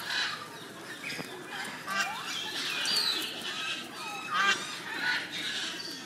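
A mixed flock of aviary birds calling over one another, with many short overlapping calls and a few sliding ones.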